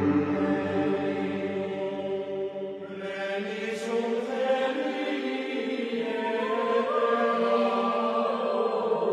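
Slow, chant-like choral music: layered voices holding long notes that shift slowly in pitch, growing brighter about three seconds in.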